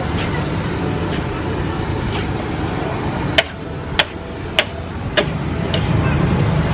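Metal spatula scraping and clanking against a large wok of fried rice being stir-fried, over a steady rumbling background. Four sharp clanks come about half a second apart a little past the middle.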